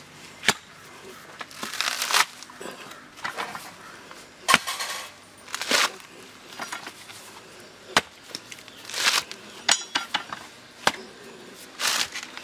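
Green coconut husk being pried apart on an iron husking spike, a sharp crack or snap every few seconds alongside short rasping tears of the fibrous husk pulling away.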